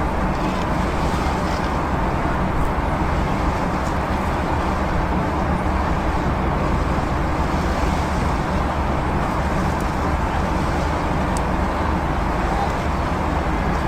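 Steady city street traffic: motor vehicles running, a continuous low hum under an even wash of road noise.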